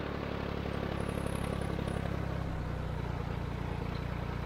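Small farm tractor engine running steadily as it drives along a rough dirt track, heard from close by on the tractor.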